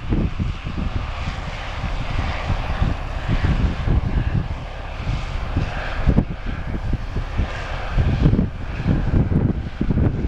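Case IH 2388 combine running steadily during corn harvest, with a continuous engine and machinery drone. Wind buffets the microphone in irregular low gusts throughout.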